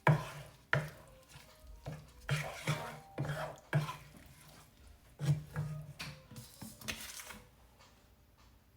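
A cooking utensil stirring food in a pan, with irregular scraping and clinking strokes of metal on the pan. The stirring stops about seven seconds in.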